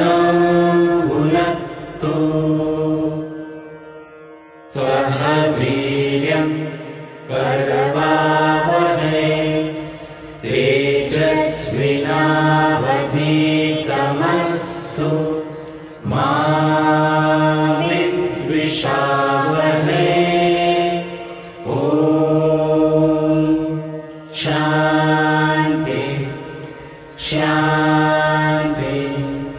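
A mixed group of men's and women's voices chanting a prayer together, in sung phrases of a few seconds with short breaks for breath between them.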